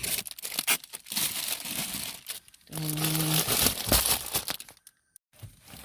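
Plastic snack-pack wrappers crinkling and rustling as packs are handled and moved about, in two spells with a short pause between them.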